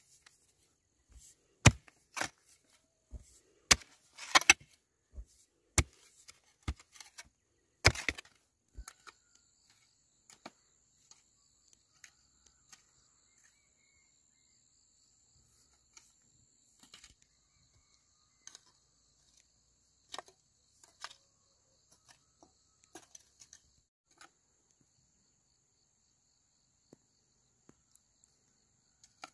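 A run of about a dozen sharp knocks, like chopping strikes, in the first eight or nine seconds, the loudest near two and eight seconds in. After that come only scattered light taps over a steady, high, faintly pulsing chirring.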